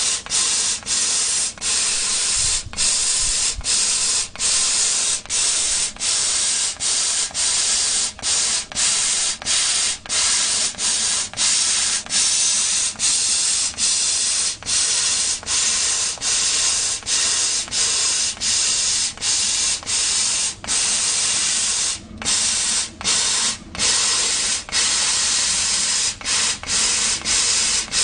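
CO2 laser cutting machine cutting 4 mm wood: a loud, steady hiss, broken many times by brief gaps.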